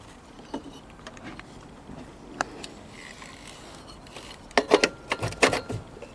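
Scattered light metal clicks and knocks, then a burst of clattering about four and a half seconds in: small metal parts and bolts handled and set down while a lawn mower's top cover is refitted.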